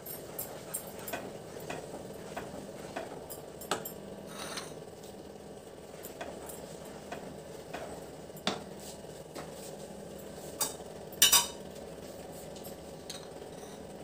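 Wooden spatula stirring a thick milk-and-cashew mixture in a nonstick pan: irregular soft taps and scrapes against the pan, with a few sharper knocks, the loudest a quick pair about eleven seconds in, over a steady low hum.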